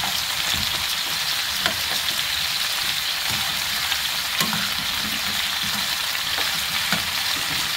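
Kabocha squash slices and salted shrimp sizzling steadily as they stir-fry in a pan, turned with a metal spoon that taps and scrapes the pan every second or two.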